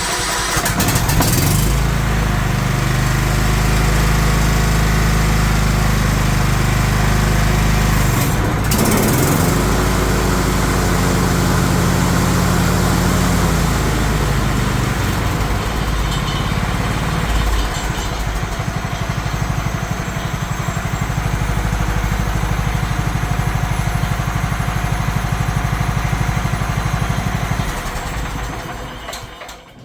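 2003 John Deere L110 lawn tractor engine running with the mower blades engaged, smooth and even. The engine note sags briefly about eight seconds in and shifts again around fourteen seconds, then winds down and stops near the end as the engine is shut off.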